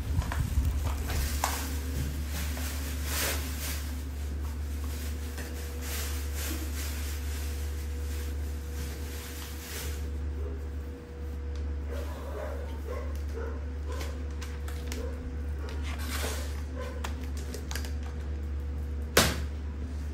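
Scattered knocks and scrapes of a plastic laundry basket on a wooden floor as a baby monkey climbs on it and pushes it, over a steady low hum, with one sharp click near the end.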